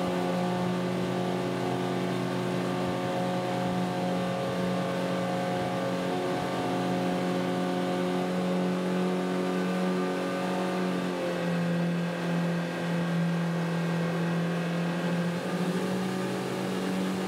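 Yamaha outboard motor on an amphibious ferry running hard, driving the boat at speed over a haze of rushing water. Its steady note dips slightly about eleven seconds in and comes back up near the end.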